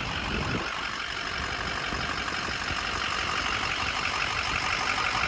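Freshly rebuilt Ford Power Stroke V8 diesel idling steadily on its first run, warming up.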